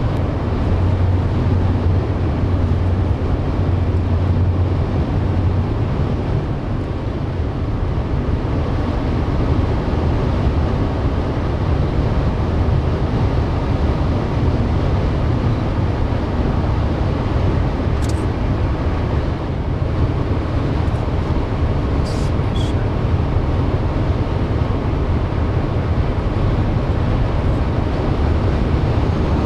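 Steady low rumble of a moving vehicle, with a few faint clicks about two-thirds of the way through.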